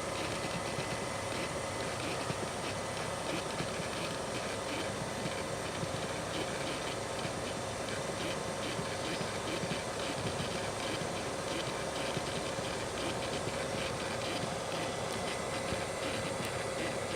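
Faulty air-mix damper servo motor from a first-generation (10-series) Toyota Alphard running on without stopping. It makes a steady whirring whine with a fine, fast rattle over a hiss. This is the abnormal noise of a runaway servo.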